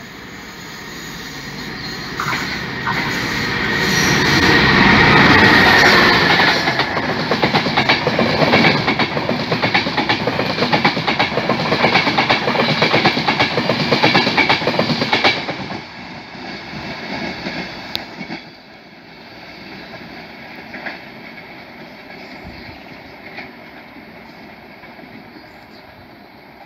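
Passenger train passing through the station at speed: a rising rush of noise as it approaches, then a rapid clickety-clack of wheels over the rails, which cuts off suddenly about fifteen seconds in as the last carriage goes by, leaving a lower steady rumble.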